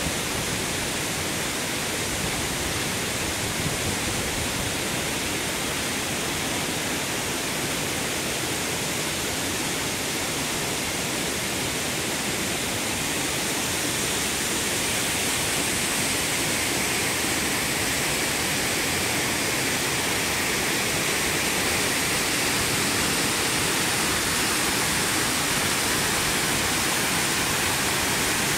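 Steady rush of a waterfall and the stream below it, growing a little louder from about halfway through.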